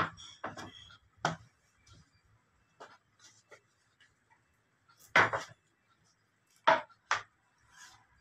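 Foil-faced boards being handled on a workbench: a run of separate knocks and short rustles as the panels are lifted, set down and smoothed. The loudest knock comes about five seconds in, with two more close together near seven seconds.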